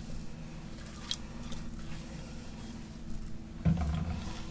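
A spatula scrapes thick custard filling out of a glass mixing bowl into a pie shell, with soft wet squishing, a sharp click about a second in and a dull thud near the end.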